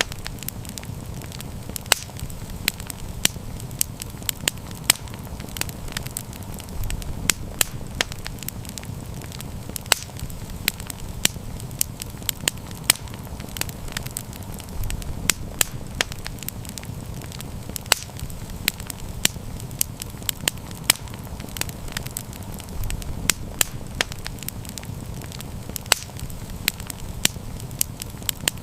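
Campfire burning: frequent sharp crackles and pops from the burning wood over a steady low rumble of the flames.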